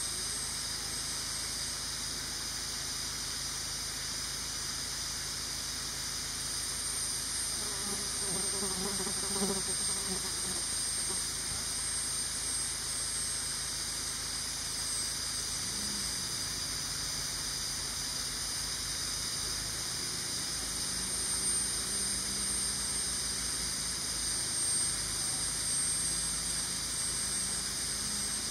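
Steady high-pitched chorus of forest insects such as cicadas, swelling slightly at times. A faint low drone rises in pitch near the end.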